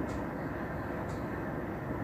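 Steady low background hum, with a faint tick about once a second.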